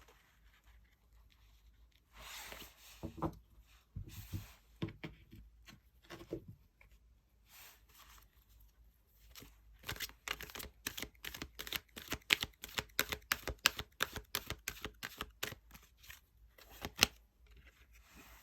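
Tarot cards being handled and shuffled. First comes a sliding rustle and a few soft knocks, then a quick run of sharp card snaps lasting several seconds, and one last snap near the end.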